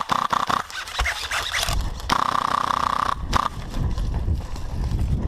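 Scraping and scuffing movement noise with a low rumble, over many sharp clicks in the first second or so.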